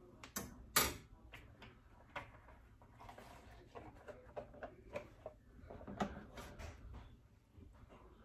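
A spatula and a metal sheet pan being handled on a stovetop: scattered clinks, scrapes and knocks, the loudest under a second in, then a run of lighter clicks and another knock about six seconds in.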